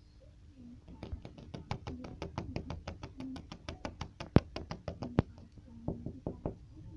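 A fast, even run of sharp knocks or taps, about seven a second for some four seconds, then a few slower taps near the end.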